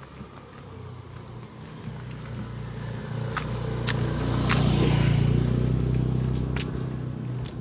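A motor vehicle passing close by: its low engine sound swells to a peak about five seconds in, then fades. A few sharp clicks sound around the loudest part.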